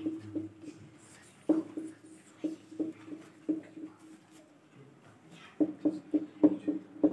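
Dry-erase marker writing Arabic script on a whiteboard: a run of short strokes and taps, with a pause in the middle and a quick cluster near the end, over a steady low hum.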